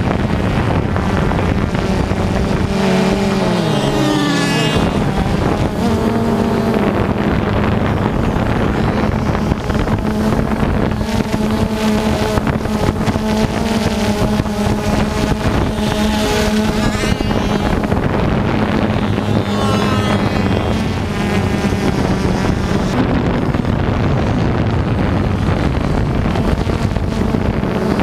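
Multirotor drone's motors and propellers humming steadily, the pitch briefly rising and falling a few times.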